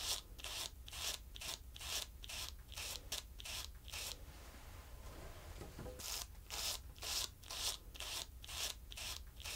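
Rhythmic rubbing strokes, about three a second, like a stiff brush or blade drawn back and forth; they stop for under two seconds about four seconds in, then go on.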